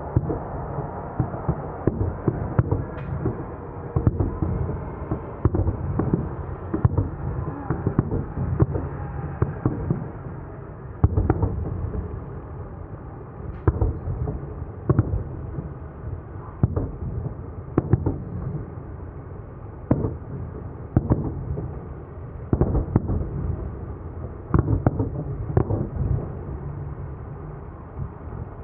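Fireworks display going off: an irregular run of sharp bangs, often one or more a second, over a steady rumble.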